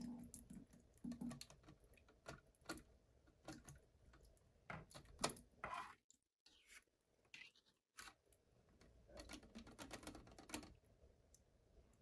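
Faint, scattered clicks and taps of the old plastic toilet fill valve being handled and pulled out of the tank, with one sharper tap about five seconds in.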